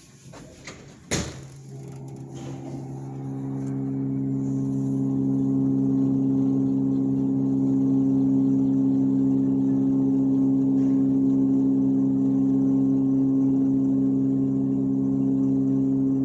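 A clunk about a second in, then a 2003 KONE hydraulic elevator's pump motor starts and runs with a steady, loud hum as it raises the car, building up over a few seconds and then holding level.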